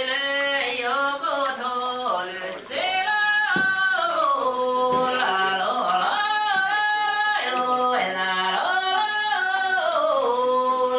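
Singing voice in long held notes that slide from one pitch to the next.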